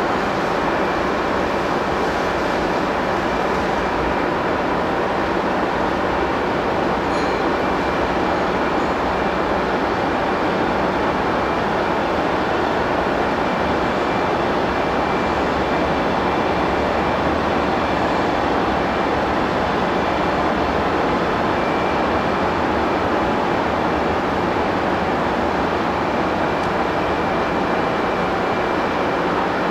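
A Taiwan Railways E400-series electric locomotive standing with its equipment running: a steady, unbroken hum-and-rush noise with a faint high whine held over it.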